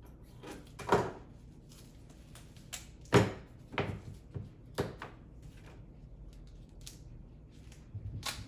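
Handling noise from putting double-sided tape onto a car side mirror's motorized face: a handful of short clicks and knocks, the loudest about three seconds in.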